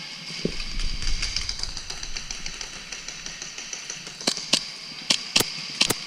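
Indoor airsoft game: a handful of sharp, separate snaps of airsoft fire, about six in quick succession starting about four seconds in. They sit over a steady high hiss, after a low rumble of movement in the first couple of seconds.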